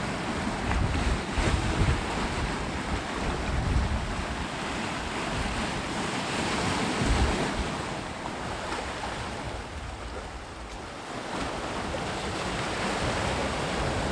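Sea waves breaking and washing on a shore, a continuous rushing that swells about halfway through, eases for a moment and builds again near the end. Wind buffets the microphone with low rumbles.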